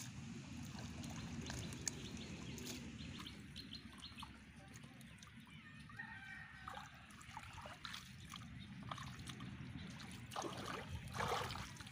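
Hands sloshing and splashing in shallow, weedy water while feeling for fish, with louder splashes near the end. A rooster crows about six seconds in.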